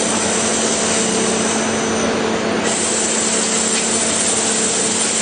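CNC machine running: a steady, loud mechanical noise with a constant hum under it.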